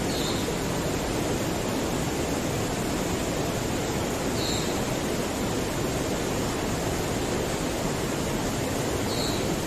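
River water rushing steadily, with a faint short high chirp three times, about every four and a half seconds.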